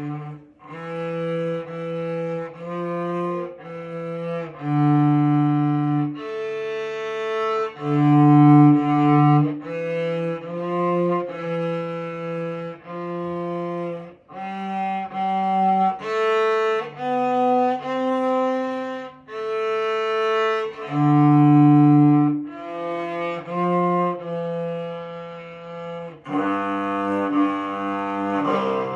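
Solo cello played with the bow: a slow melody of separate held notes with short breaks between phrases. The notes come quicker in the last few seconds.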